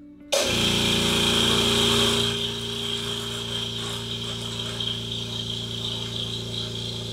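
Goodyear 8-gallon oil-free air compressor (1 HP, twin-cylinder pump) switching on abruptly and running to fill its tank. Loudest for the first two seconds, then it settles to a slightly lower, steady drone.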